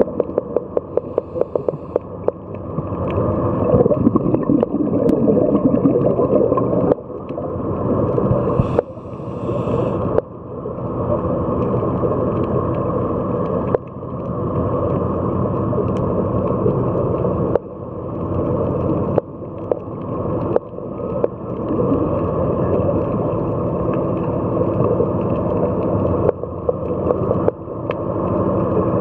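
Scuba diver's exhaled bubbles from the regulator rushing and gurgling past the underwater camera housing, with many small clicks. The noise comes in breaths a few seconds long, each swelling and then cutting off abruptly.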